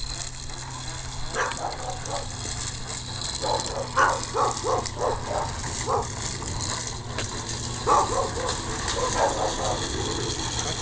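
Dog barking in several quick runs of short, sharp barks.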